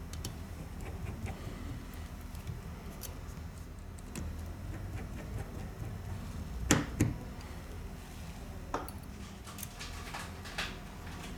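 Scattered small clicks and taps of tools and phone parts being handled on a workbench over a low steady hum, with two sharper knocks in quick succession a little past halfway.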